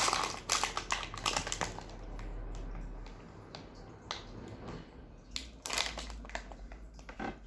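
Wrapping from a surprise Easter egg crinkling and crackling as it is handled. The crackles come in bursts: dense in the first second and a half, again around six seconds in and briefly near the end, with quieter rustling in between.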